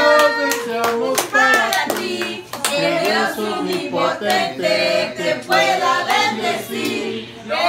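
Hand claps keeping time while a small group of people sings a birthday song.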